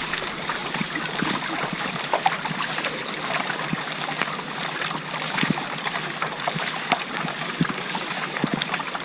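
Water trickling and splashing around a kayak in steady rain, with many small sharp drop ticks scattered throughout.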